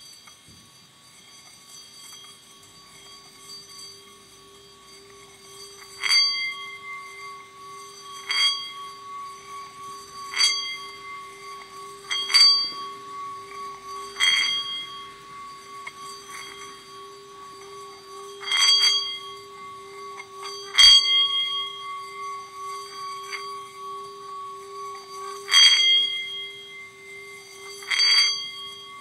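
A large singing bowl sounding a steady, evenly wavering low hum. From about six seconds in, higher ringing strikes sound over it about nine times, every two to five seconds, each dying away slowly.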